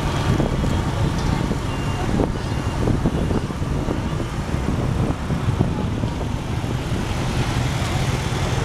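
Steady motor-scooter ride through busy street traffic: the scooter's small engine running and the low rumble of the motorbike traffic around it.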